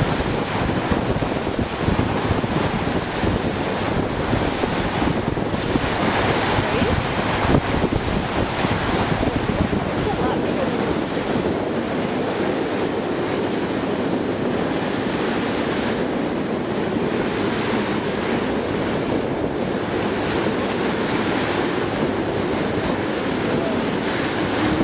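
Wind buffeting the microphone over a steady rush of water churned up along the side of a moving boat.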